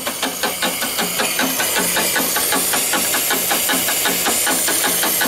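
Rebuilt reciprocating boiler feed pump running on steam, its strokes knocking in a quick, even rhythm over a steady hiss of exhaust steam.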